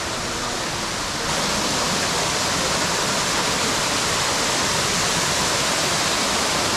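Waterfall: steady rushing, splashing water that grows louder about a second in.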